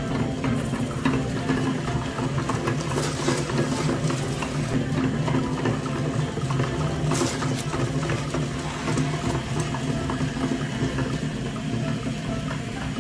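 Meat grinder running with a steady motor hum, with scattered crackles as chocolate-dipped ice cream cones are ground through it.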